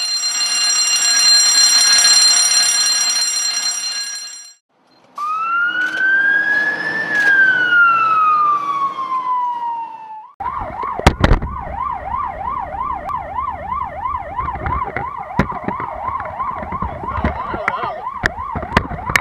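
A steady blaring tone for about four seconds, then a siren that winds up and falls away once. From about ten seconds in, a fire engine's siren yelps fast, about two and a half cycles a second, with scattered knocks.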